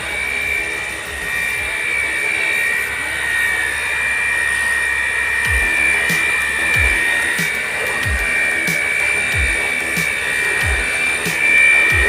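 Cordless water gun's motor whining steadily as it sprays water. About halfway in, background music with a slow, regular beat comes in over it.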